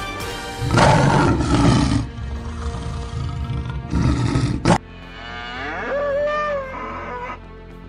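Animal sound effects over background music: a loud lion roar about a second in and a shorter one about four seconds in, then a cow mooing, its pitch rising, holding and falling away.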